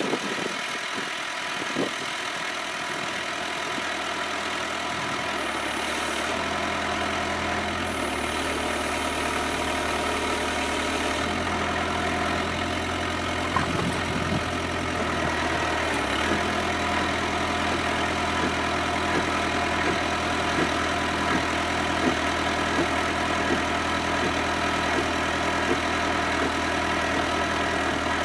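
Kubota B7800 compact tractor's diesel engine running steadily while powering a three-point-hitch, PTO-driven post hole auger digging into the ground. Its note steps up and down a few times in the first half.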